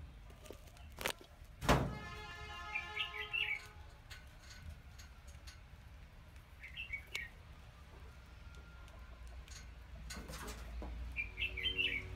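Rats squeaking in short, high chirping bursts, three times. There are a few sharp knocks, the loudest about two seconds in, followed by a ringing tone that fades over a couple of seconds.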